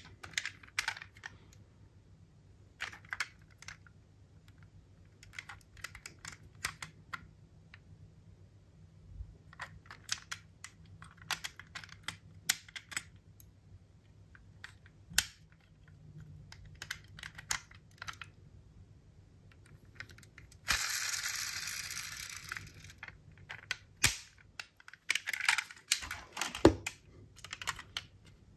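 Sharp clicks and taps of diecast metal model cars and their boxes being handled, irregular and scattered, with a hissing scrape lasting about two seconds around two-thirds of the way through.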